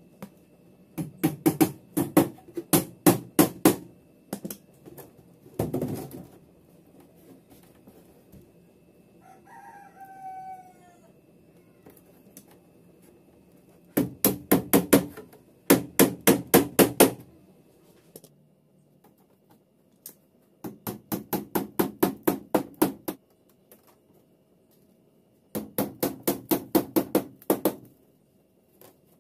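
Small nails being tapped into a wooden and plywood cat cage with pliers used as a hammer, in runs of quick taps about four a second separated by pauses. A rooster crows once, about a second long, in a gap near the middle.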